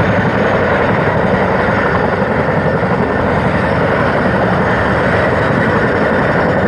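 Boeing Chinook tandem-rotor helicopter running loud and steady on the ground just before lift-off: the rapid beat of its two rotors over the whine of its twin turboshaft engines.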